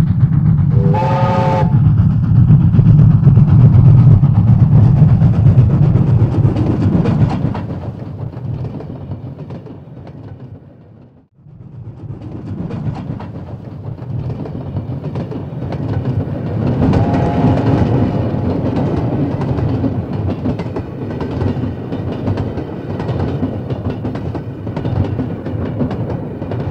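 A train running on rails, with a heavy rumble and wheel clatter and a short horn blast about a second in. The rumble dies away around the middle, then a train rumbles and clatters past again.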